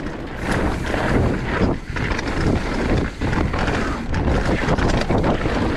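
Wind buffeting the camera microphone as a mountain bike rolls fast down a dirt trail, mixed with tyre rumble and frequent short knocks and rattles from the bike over bumps.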